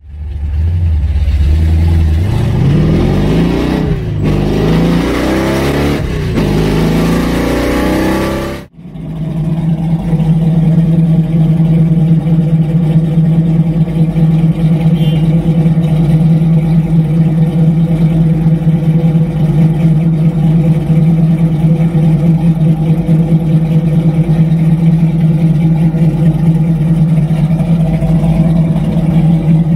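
A 496 big-block Chevy V8 in a 1969 Camaro, revved up and down several times. After a sudden cut it settles into a steady idle through the car's old mufflers.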